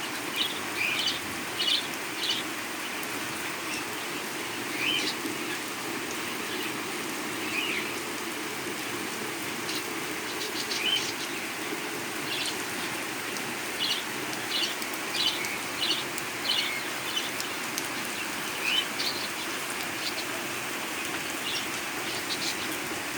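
Steady heavy rain falling, with a bird giving short chirps on and off throughout.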